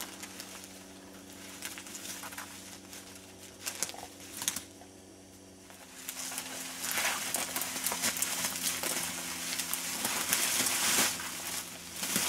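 Dry fallen leaves crunching and rustling under footsteps and as a deer is pulled across them. Scattered crackles at first, then a louder, continuous rustle from about six seconds in.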